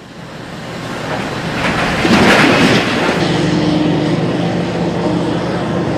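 Giant mining excavator at work: a rumble that builds, a loud rushing burst about two seconds in, then a steady engine drone.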